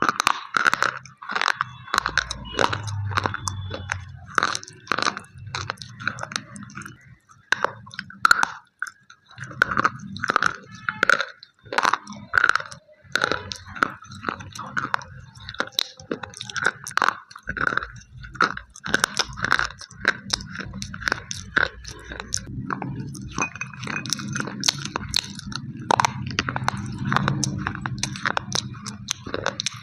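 Slate pencils being bitten and chewed: a dense, irregular run of sharp crunches and cracks.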